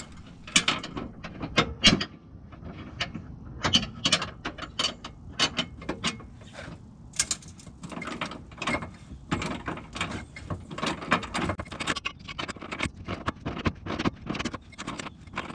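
Hand ratchet clicking in quick runs of strokes, tightening the bolts of a K-member brace.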